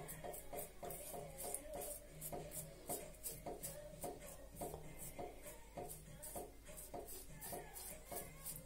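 Muhle Rocca safety razor with a Bluebird double-edge blade scraping through lathered stubble in quick, short, repeated strokes.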